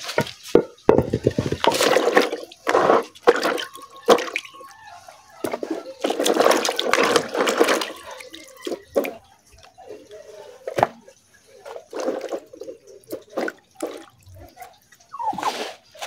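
Water splashing and dripping in a plastic basin as a hand scoops out soaked roots and green chillies, in irregular bursts with a few sharp clicks.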